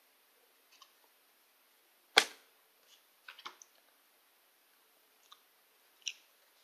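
Handling noises: one sharp knock about two seconds in, then a few quieter clicks and taps.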